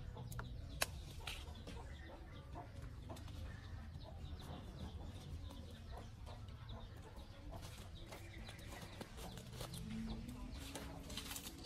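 Chickens clucking faintly, with a few sharp clicks, the loudest about a second in.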